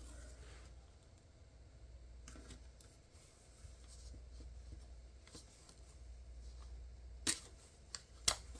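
Faint paper-and-tape handling: washi tape being laid across a notebook page and smoothed down with the fingers, with light rubbing and rustling. Two sharp clicks about a second apart near the end are the loudest sounds.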